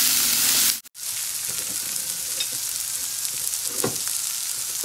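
Diced bell peppers and onion sizzling in hot oil in a frying pan, with a wooden spatula stirring them at the start. The sound drops out briefly just under a second in, then the sizzle carries on a little softer.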